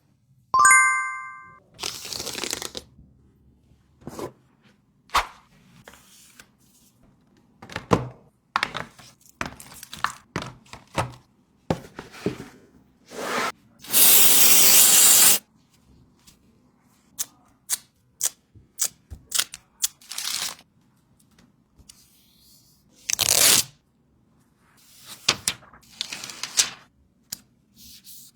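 Repeated sharp clicks, taps and cracks of small tools and parts being handled, with a short chime-like tone near the start and a hiss lasting about a second and a half around the middle.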